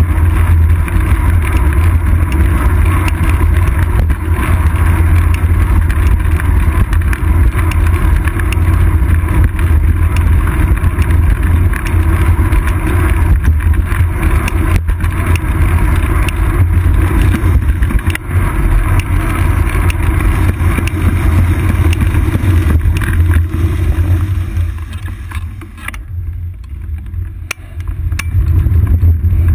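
Steady wind buffeting and tyre-on-asphalt road noise from a moving bicycle, a heavy low rumble on a seat-post-mounted GoPro Hero 2's microphone. It dips for a few seconds near the end, then returns to full strength.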